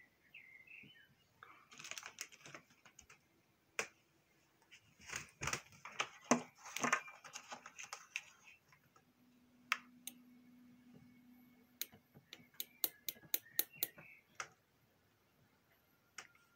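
Sharp clicks and crackling at a plasma ball's glass globe as objects are handled against it, densest in the first half. A short, steady low hum about nine seconds in, then a quick run of sharp clicks.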